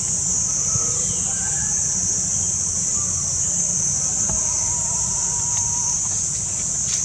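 Steady high-pitched drone of insects, with a steady low rumble beneath and a few faint short calls.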